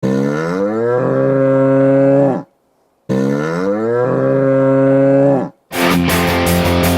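Lone Star Brahmas goal horn sounding two long blasts. Each blast rises in pitch over its first second, holds steady, then cuts off. Loud rock music with guitar kicks in near the end as the goal song.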